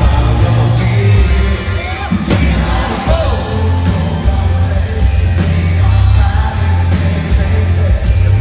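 Live country-rock band playing loudly, with heavy bass and drums, and a male lead singer singing over it.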